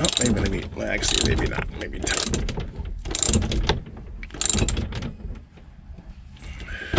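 Socket ratchet clicking as it tightens the nut on a boat cleat's through-bolt from beneath the deck, five back-strokes about a second apart, stopping about five seconds in.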